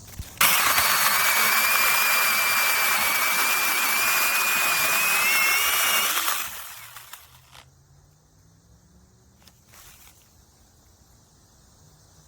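Battery-powered brushless mini chainsaw running at full speed with a steady high whine for about six seconds, then released and spinning down.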